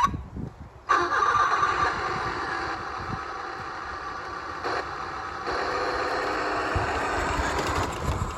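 Electric drive motor and gears of a New Bright radio-controlled Ford Lightning pickup switching on about a second in and running with a steady whine as the truck pulls away towing a boat trailer.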